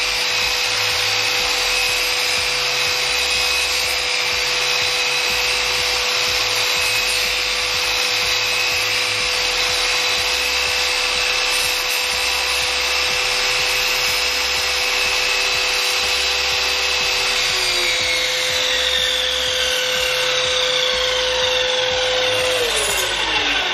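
SIP 12" sliding compound mitre saw with a 2000 W belt-driven motor running steadily with a constant whine while it cuts timber to form tenons. Near the end it is switched off and its whine falls in pitch as the blade spins down.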